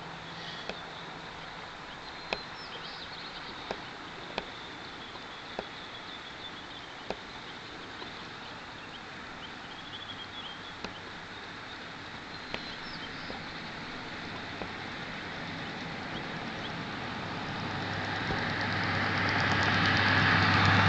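Open-air ambience with a few faint bird chirps and scattered small clicks. Later on a passing vehicle grows steadily louder, its engine hum and tyre noise becoming the loudest sound near the end.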